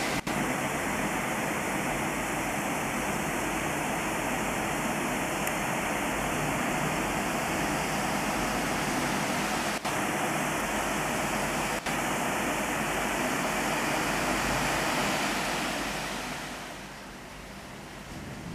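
Rain falling steadily in a thunderstorm, a dense even hiss of drops on a swimming pool's water and the surrounding paving. It eases to a softer, duller patter near the end.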